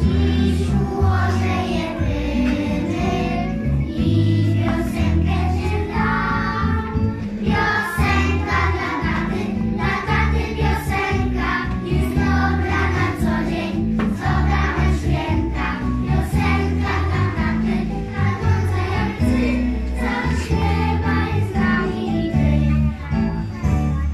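A group of young children singing a song together over recorded backing music with a prominent bass line.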